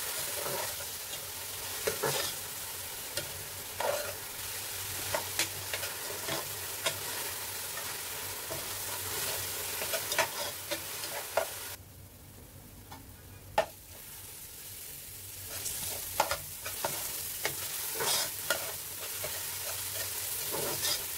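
Minced onions and garlic sizzling in hot oil in a metal pot as a metal spoon stirs them, with frequent scrapes and clinks of the spoon against the pot. The onions are being sautéed until tender and translucent. For a few seconds past the halfway point the sizzle drops quieter, broken by one sharp clink.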